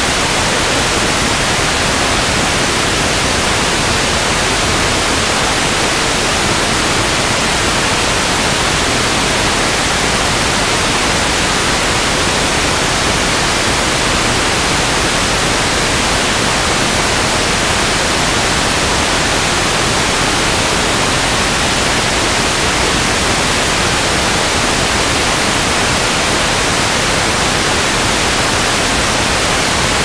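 Loud, steady static hiss from a VCR playing back a blank VHS tape, with no tone or rhythm in it.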